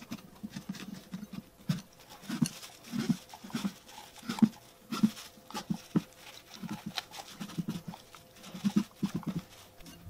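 A Siberian husky eating raw pumpkin pulp and seeds: wet chewing and smacking in short, irregular bursts about twice a second.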